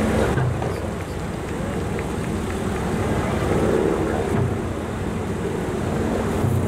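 Diesel engines of a KiHa 183-series limited-express railcar idling at a station platform: a steady low drone with a faint hum above it.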